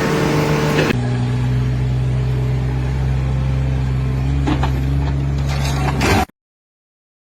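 A motor engine running steadily with an even hum, its pitch dropping at a change about a second in, then the sound cuts off to silence a little after six seconds.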